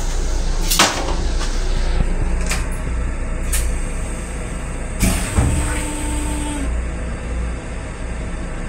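Steady low rumble of a Long Island Rail Road M7 electric railcar on the move, heard inside its small restroom, with several sharp knocks and rattles from the fittings. A short steady tone sounds for over a second about five seconds in.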